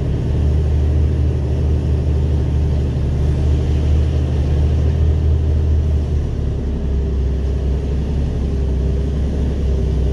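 Mercedes Actros MP4 truck's diesel engine pulling hard with a deep, steady drone as the truck and trailer creep up a snow-covered climb; the drone drops a little about six seconds in.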